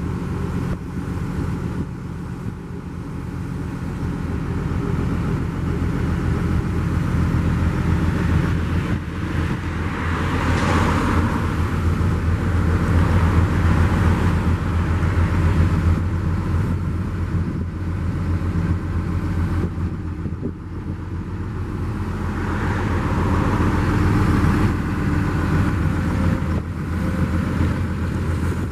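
Excavator diesel engine running steadily, with two swells of louder, rougher noise, about ten and about twenty-three seconds in.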